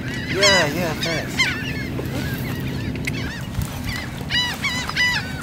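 A flock of laughing gulls calling over their nesting colony: many harsh, up-and-down calls overlapping, a burst in the first second, scattered calls in the middle, and a denser run of calls near the end.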